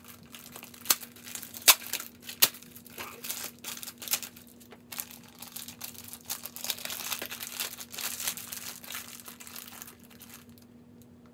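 A small cardboard pregnancy-test box and its wrapping being opened and handled: crinkling and tearing, with three sharp snaps in the first two and a half seconds.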